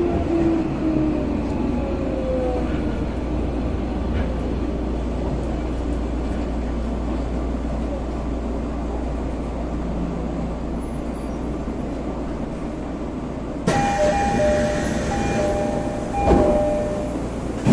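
Tokyo Metro 13000 series electric train running, heard inside the passenger car: a steady wheel and track rumble, with the motor whine falling in pitch and fading over the first second or so. About 14 seconds in, the noise suddenly gets louder and two steady tones sound for a few seconds, followed by a single thump near the end.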